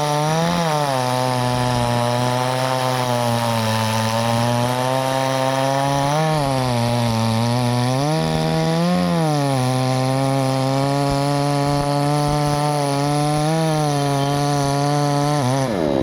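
Chainsaw running at high revs while cutting through wood. Its pitch sags under load and rises briefly several times, about 6, 9 and 13 seconds in, as the chain frees up in the cut.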